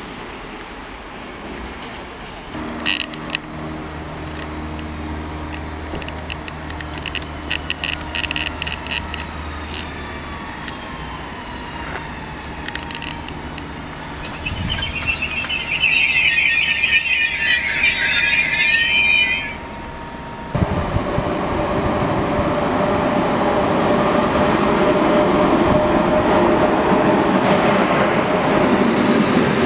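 A blue Pågatåg electric multiple unit moving through the station, with a tone falling in pitch and then several seconds of high-pitched squealing. After a sudden cut, a Green Cargo Rd2 locomotive with a freight train of tank containers passes close, its wheels rumbling and clattering louder and louder.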